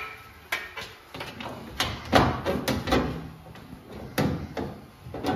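Irregular knocks and clatter, about ten in all with a busier stretch in the middle, from a thin crush panel being handled, knocked against the tube frame and pressed into place in a race car's cockpit.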